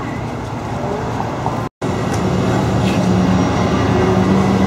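Outdoor hubbub, then, after a brief cut to silence about two seconds in, a car engine idling with a steady low drone.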